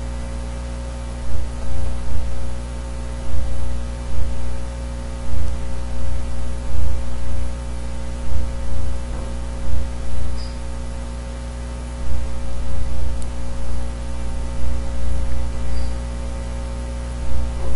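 Steady electrical mains hum and hiss from the recording microphone, with irregular dull low thumps about once or twice a second from a computer keyboard as text is deleted and typed.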